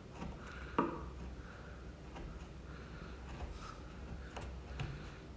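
Chisel scraping dried glue and wood fibres out of a door joint: faint, light scraping with a few soft ticks.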